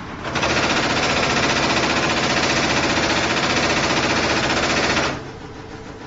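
CNC stator lamination notching press punching in a rapid, machine-gun-like run of strokes for about five seconds, starting just after the opening and cutting off abruptly. A quieter steady machine hum runs before and after the strokes.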